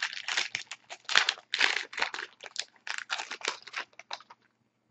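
Foil trading-card pack wrapper crinkling and tearing as it is opened, with the cards rustling as they are handled, in a quick run of short rustles that stops about four and a half seconds in.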